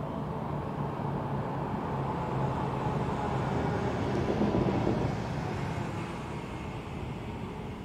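A motor vehicle passing: a steady engine and road hum that builds to its loudest about four to five seconds in, then fades away.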